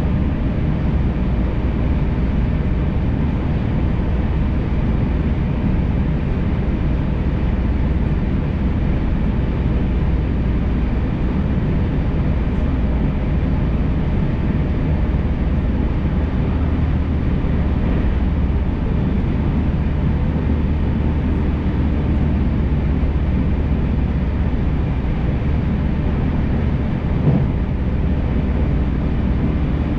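Electric passenger train on the JR Tokaido Main Line heard from aboard while running: a steady rumble of wheels on rail and running gear, with a short knock near the end.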